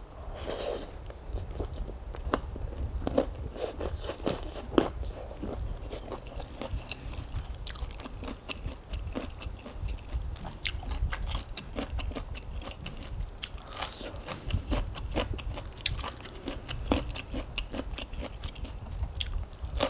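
Close-miked mouth sounds of eating: chewing rice-noodle salad and biting crisp raw vegetables, an irregular run of wet chewing broken by many sharp crunches.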